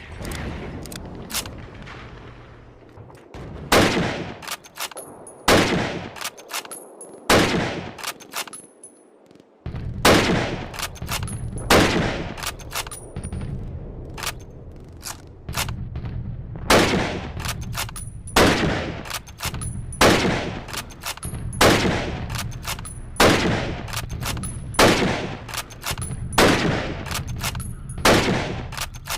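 Lee-Enfield bolt-action rifle firing shot after shot, about fifteen shots roughly every one and a half to two seconds, each with a short ringing tail and small clicks between them. A steady low rumble runs underneath from about ten seconds in.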